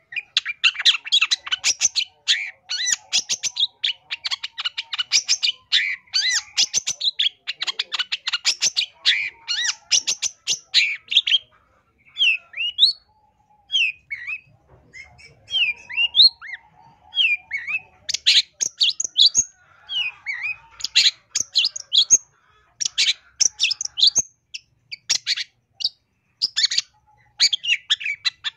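Long-tailed shrike (cendet) singing a loud, varied song packed with mimicked phrases: a dense run of rapid high chattering notes, breaking after about eleven seconds into separate slurred whistles, then fast bursts of chatter again.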